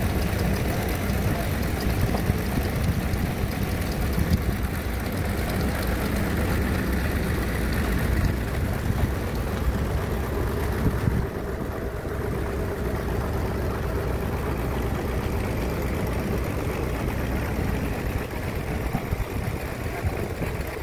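Band sawmill running steadily with a continuous mechanical hum; about halfway through the sound drops slightly in level and thins at the low end.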